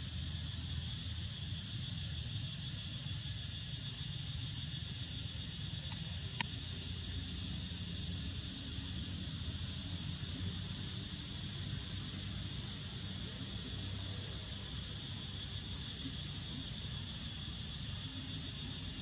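Steady high-pitched drone of insects, over a low rumble, with a single sharp click about six seconds in.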